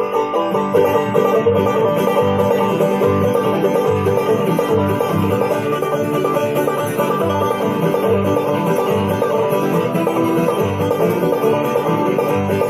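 Bluegrass band playing an instrumental intro: a clawhammer-style banjo over guitar, with a bass sounding low notes on an even beat.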